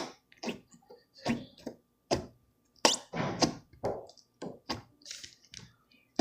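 Slime being squeezed and poked in the hands, making about a dozen irregular wet clicks and pops.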